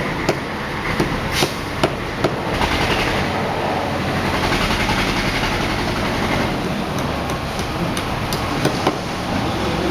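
Construction-site and street noise: a steady din with scattered sharp knocks, several in the first couple of seconds and a few more near the end.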